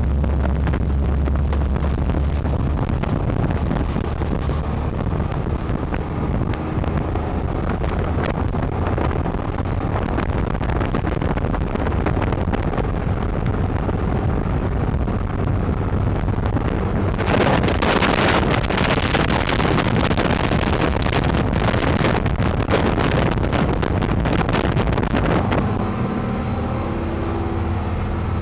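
Fishing boat running at speed: a steady engine drone under rushing wind and water. The rush grows louder for about eight seconds past the middle, then eases, and the engine drone comes through more clearly near the end.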